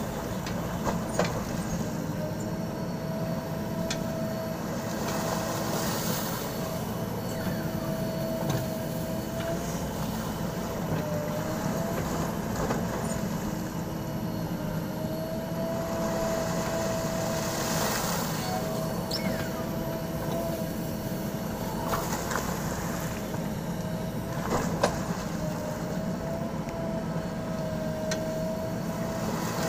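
JCB backhoe loader's diesel engine running steadily under working load, with a steady whine that dips in pitch now and then and a few short knocks.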